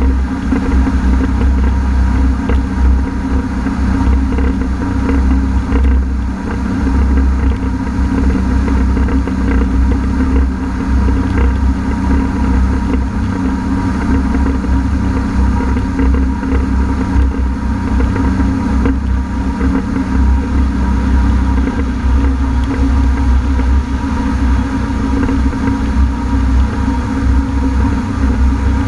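Honda AquaTrax F-12X personal watercraft engine running steadily under way, a continuous engine drone with a deep rumble beneath it. The ski has a failed turbocharger, which leaves it down on power even at full throttle. One of the engine tones rises slightly about two-thirds of the way through.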